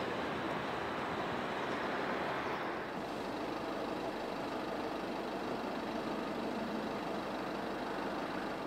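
Steady road traffic noise, an even hiss of vehicles going by. The upper hiss thins about three seconds in.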